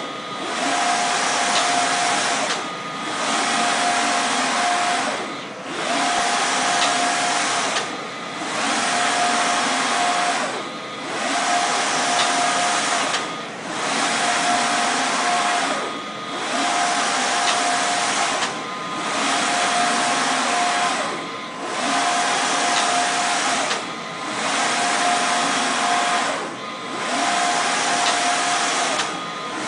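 Matan Barak wide-format printer printing: a steady loud whirr with a thin whine, dipping briefly about every two and a half seconds as the print carriage finishes each pass across the media and reverses.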